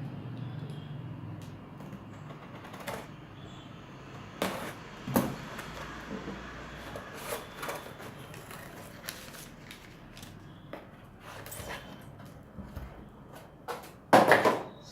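A parcel being opened by hand: packaging rustling with scattered clicks and knocks, and a louder rustle about a second before the end.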